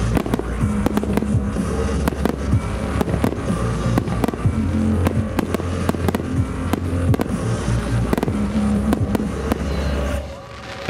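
A starmine fireworks barrage: aerial shells bursting in quick succession, many sharp bangs, over loud bass-heavy music from a nearby loudspeaker. Near the end the sound drops away for a moment.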